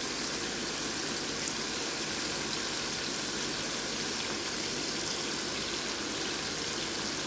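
Mutton liver masala sizzling steadily in the pan, an even hiss with no breaks.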